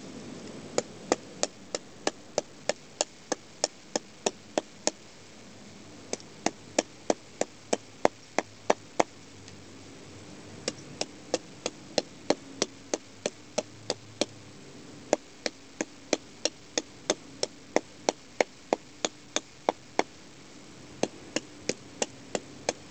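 Ovecka #1 bushcraft knife chopping into a black locust twig: sharp, evenly paced strikes of the blade into the wood, about two to three a second, in runs of several seconds with short pauses between.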